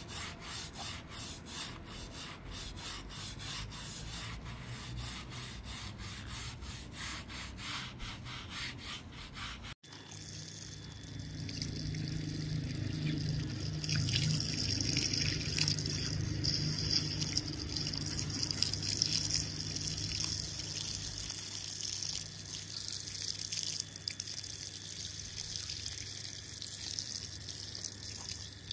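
Stiff hand brush scrubbing a wet carpet in quick, even rhythmic strokes. About ten seconds in the sound breaks off sharply and gives way to a louder steady hiss.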